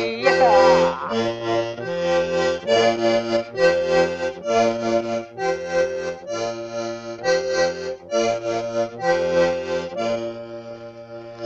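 Button accordion playing an instrumental passage: chords over a repeating bass pattern, getting quieter near the end.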